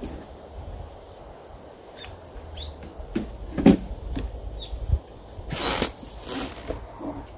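Handling noises of float-fishing tackle: light clicks and knocks of the rod and rig, a small plop about three and a half seconds in as the baited rig drops into the pond, and a brief swish of jacket fabric near the end.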